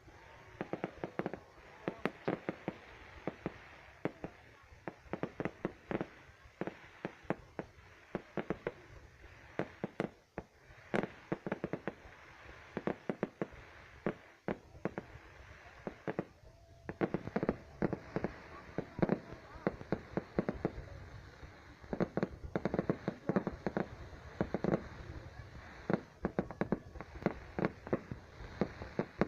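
Fireworks display: a rapid, irregular run of bangs and cracks, coming in dense clusters with short lulls between them.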